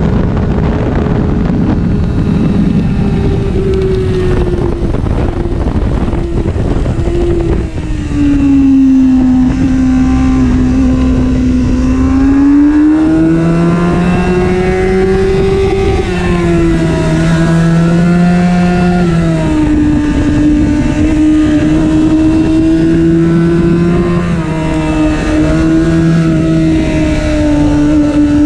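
Honda CBR600F inline-four engine heard from on board at track speed, with heavy wind rush at first. The engine note falls over several seconds as the rider brakes from top speed for a corner, bottoms out mid-corner, then rises again and holds under throttle through the next bends, with brief dips.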